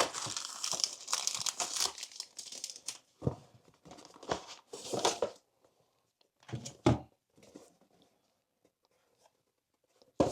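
Drone box packaging being unpacked by hand: dense crinkling and tearing for about three seconds, then a few separate short rustles and a light knock.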